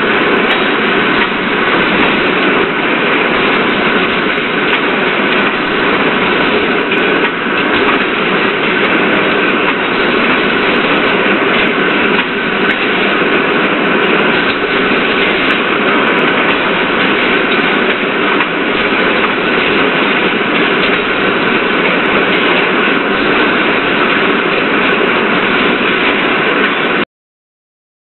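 Steady, loud machinery noise from a brass ingot casting line and its chain conveyor: a dense hum and hiss with a few steady tones running through it. It cuts off suddenly near the end.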